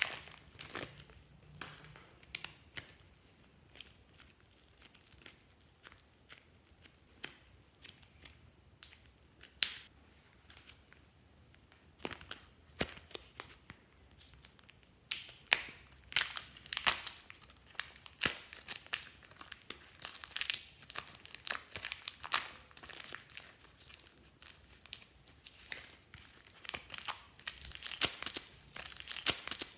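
Thin plastic wrapping crinkling and tearing as hands peel it off soft clay pieces. Sparse crackles at first, getting busier and louder about halfway through.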